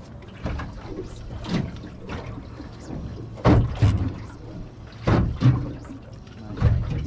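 Water sloshing and slapping against a small boat's hull in irregular surges, about one a second, the loudest around the middle.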